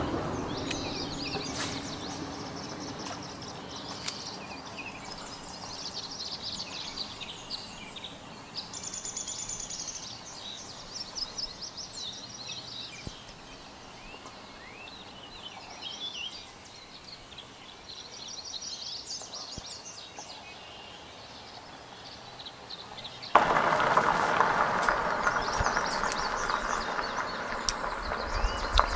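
Songbirds chirping and trilling over a faint outdoor background. About 23 seconds in, a much louder steady buzzing noise starts suddenly and keeps going.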